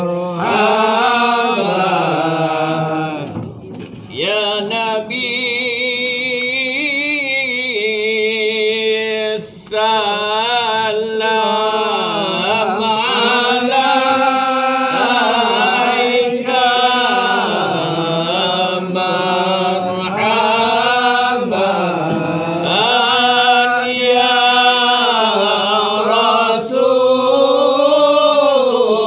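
Group of male voices chanting zikir and selawat for the Prophet (marhaban) in a melodic, unison devotional chant, with sustained, wavering notes and short breath breaks about 4 and 9.5 seconds in.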